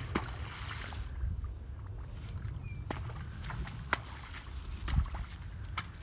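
Friesian horse pawing and stepping in a shallow rain puddle, water splashing and sloshing in irregular strokes with sharp knocks, over a steady low rumble.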